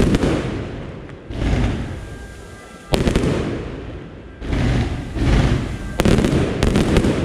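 Aerial fireworks shells bursting one after another, about seven bangs, some sharp and some swelling, each fading away over a second or so. The bangs come close together near the end.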